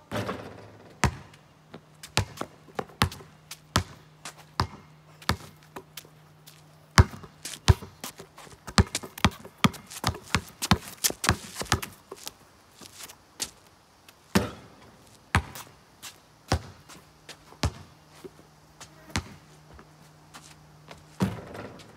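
Basketball being dribbled on pavement: a long run of sharp bounces, fast and close together in the middle, sparser toward the end, over a faint steady hum.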